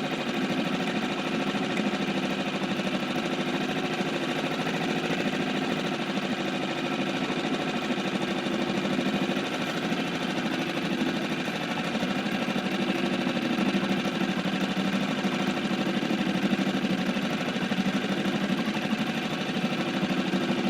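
Small outboard motor running steadily at an even speed, heard up close.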